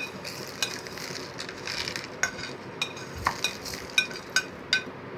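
Kitchen handling with about a dozen irregular sharp clinks against a dish that rings at the same pitch each time, with light rustling between them, as whole spices, onion, garlic and lemon slices are added in for the chicken brine.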